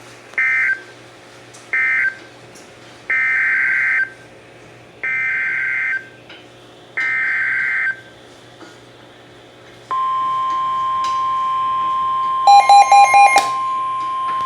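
Emergency Alert System SAME data bursts: two short end-of-message bursts, then three longer warbling header bursts of about a second each announcing the next warning. About ten seconds in, the steady single-pitch 1050 Hz NOAA Weather Radio alert tone begins, with a quick run of loud beeps near the end.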